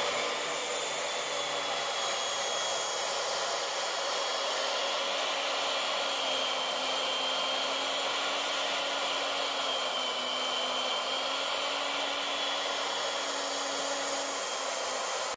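Forest Scientific CNC router running its program: the spindle whirs steadily at 18,000 rpm while a 1/2-inch ball end mill cuts a groove into a pine board.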